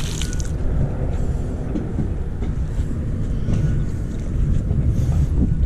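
Steady low rumble of wind buffeting the microphone. The last of the splash from a thrown magnet-fishing magnet fades out about half a second in. Faint brief rustles come from the rope being hauled in hand over hand.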